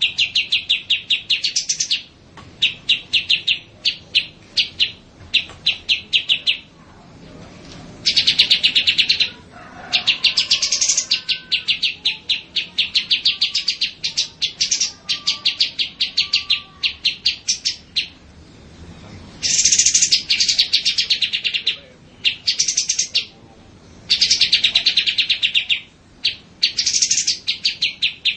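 Small songbirds chirping in fast, evenly repeated runs of high notes, several to the second, broken into bursts of one to a few seconds with short pauses between them; a softer, lower warbling runs beneath for a few seconds near the middle.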